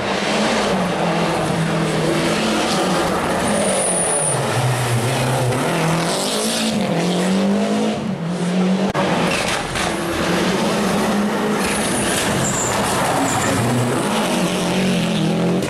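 Rally car engine running hard, its revs rising and falling again and again as it accelerates and slows, with short high tyre squeals here and there.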